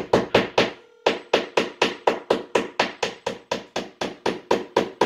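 Rapid, even clicking, about four strikes a second, with a short break near one second in.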